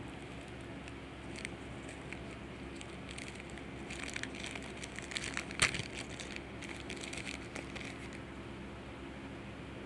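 Foil Yu-Gi-Oh! booster-pack wrapper crinkling and crackling as it is worked open by hand, busiest in the middle with one sharp crackle about five and a half seconds in.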